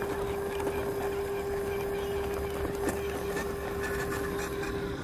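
Electric motor and gears of a radio-controlled 4x4 scale crawler whining at one steady pitch as it drives over rough dirt, with a low rumble and a few small knocks.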